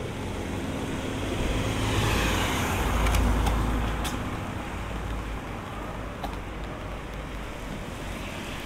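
A motor vehicle driving past on a rain-wet street. Its engine rumble and tyre hiss swell to a peak about three seconds in, then fade away under a light patter of rain.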